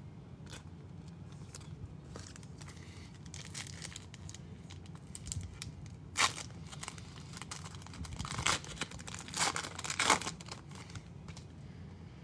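Foil trading-card pack wrapper being torn open and crinkled by hand, in a run of crackly rips with the loudest ones a little past halfway.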